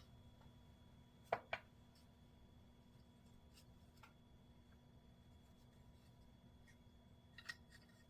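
Near silence with a few faint light clicks: a pair about a second and a half in and a couple more near the end. These are the small parts of a push-button spincast reel being handled as it is taken apart.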